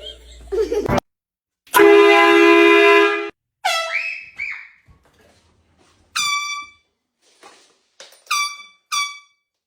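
A handheld air horn blasts once, a loud steady blare lasting about a second and a half. A falling startled cry follows, and later three short high-pitched cries.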